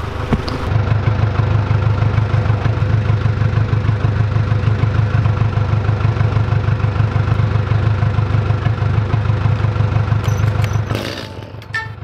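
Small gasoline engine idling steadily with a fast, even throb, then stopping about a second before the end.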